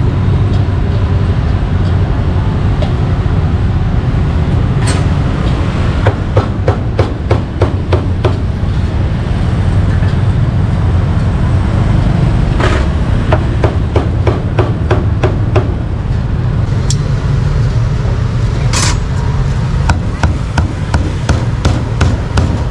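Cleaver chopping grilled meat on a thick round wooden chopping block: runs of quick knocks, several a second, over a steady low rumble.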